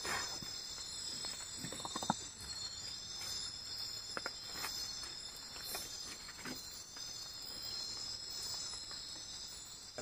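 Steady high-pitched chorus of forest insects, with a few faint clicks and knocks scattered through it.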